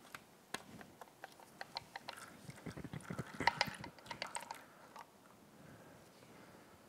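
Faint, scattered clicks and light scrapes of a metal oil filter cap being pried loose with a screwdriver and lifted off the filter housing of a Honda CRF450R engine. A flurry of louder clicks comes about halfway through.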